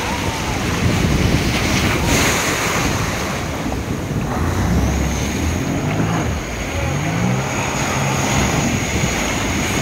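Sea surf breaking with wind buffeting the microphone; from about halfway through, a Sea-Doo jet ski's engine comes in and revs up, rising in pitch as the craft pulls out through the waves.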